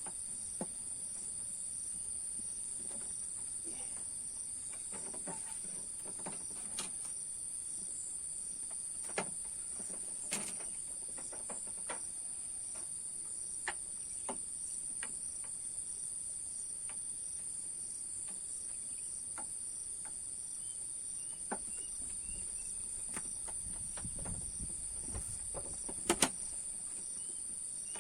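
Steady high-pitched insect drone, with a few faint scattered clicks and a sharp double click near the end.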